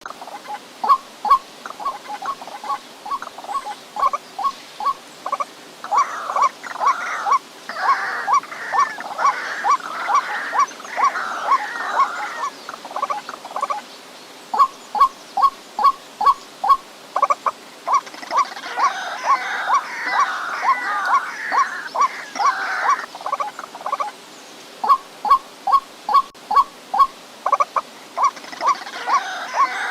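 White-breasted waterhen calling: long runs of short, repeated croaking notes, about three a second. Twice the calling swells into a busier, overlapping chatter, and the run breaks off briefly a few times.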